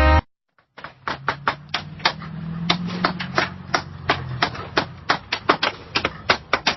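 Background music cuts off at the start. After a short gap comes a run of quick, irregular hammer taps, about three a second, over a low steady hum.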